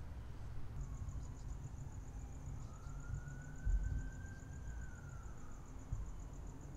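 Crickets chirping in a fast, even pulse over a low outdoor rumble. Through the middle a faint tone rises and falls once, like a distant siren.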